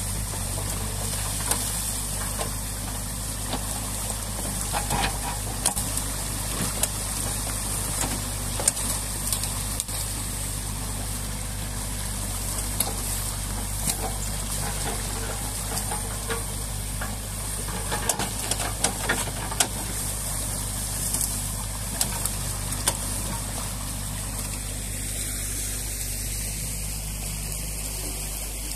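Water rushing and splashing through the breach in a beaver dam, with the diesel engine of a New Holland Kobelco E50.2C mini excavator running steadily underneath as a low hum.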